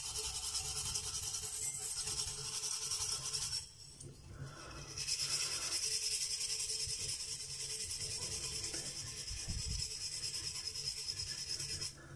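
Stainless-steel scouring pad scrubbing a wet, tarnished metal jug: a steady, scratchy rubbing that stops briefly about four seconds in, then carries on.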